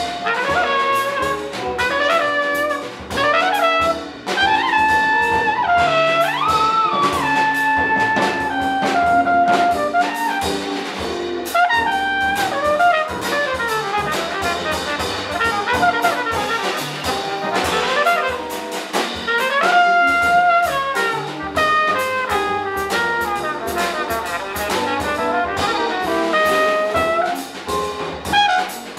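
Live small-group jazz: a trumpet plays the lead melody, with bends and slides, over upright bass and drum kit.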